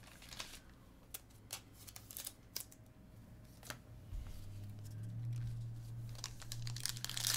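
Scattered soft clicks and taps of trading cards and packs being handled on a tabletop. A low steady hum comes in about halfway, and near the end a foil card pack crinkles as it is picked up.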